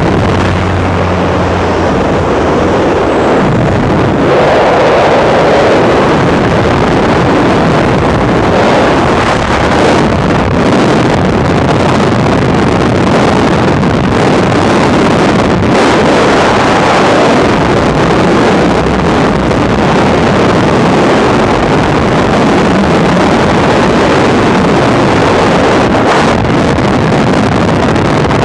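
Freefall wind rushing over a body-mounted camera's microphone: a loud, steady rush of wind noise. A low steady hum sits under it for the first two seconds, then fades.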